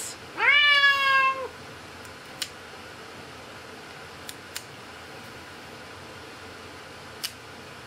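A long-haired domestic cat gives one long meow near the start, rising in pitch and then held, while it is restrained to have its back claws clipped. It is followed by four faint, sharp clicks from pet nail clippers cutting the claws.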